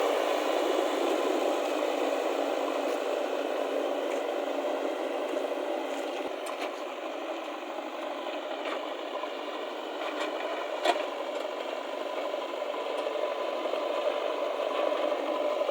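JCB backhoe loader working: its engine runs steadily under scraping and rattling of the machine at work, with a few sharp knocks, the loudest about eleven seconds in.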